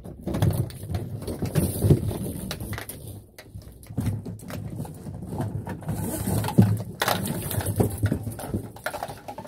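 Flexible metal shower hoses and handheld shower heads being lifted and handled out of a cardboard box, rattling, clicking and knocking together in irregular bursts.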